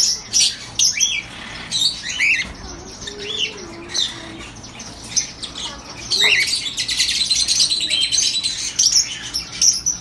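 Many caged birds calling at once: short high chirps and squawks, with a falling call about six seconds in, after which the chirping becomes dense and louder.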